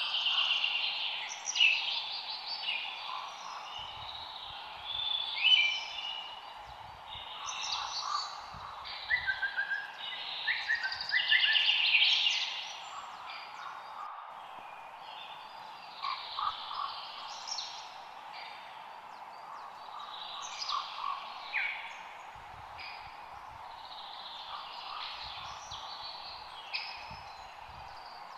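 Forest ambience: several birds chirping and singing over one another, over a steady background hiss. The calls are busiest in the first half and thin out later.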